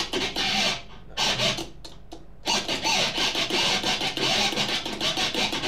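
Electric guitar scratch effect: muted strings rubbed in quick rhythmic strokes while a pickup switch, with one volume knob turned off, cuts the sound on and off like a kill switch, giving fast choppy stutters. It is played with little distortion, with a short pause about two seconds in.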